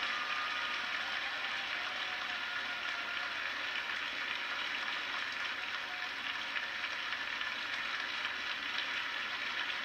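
A large crowd of students cheering and clapping: a steady dense noise with faint voices shouting through it.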